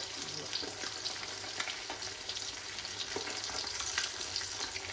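Whole sea bass frying in hot oil in a pan: a steady sizzle with frequent small crackles and pops as the skin crisps.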